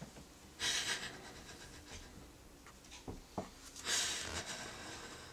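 A woman crying without words: two heavy, breathy sobbing breaths, one about a second in and a louder one about four seconds in.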